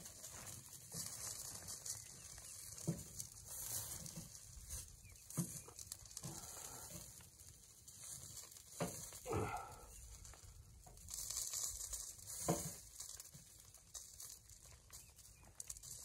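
Food being turned on a wire camp grill: a few soft knocks and clinks of the utensil against the grill, over a steady uneven hiss.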